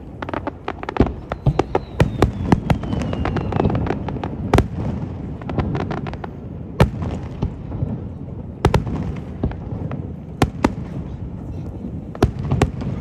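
Aerial fireworks display: a rapid run of crackling bangs in the first few seconds, then single loud shell bursts every second or two. A faint falling whistle sounds about two seconds in.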